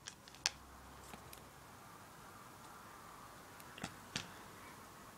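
Faint room hiss with a few light clicks and taps of handling noise, two near the start and two close together about four seconds in.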